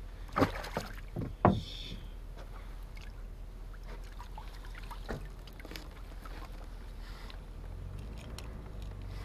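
A few light knocks and rustles of handling close to the microphone in the first second or two, then faint steady background noise, with a low rumble starting near the end.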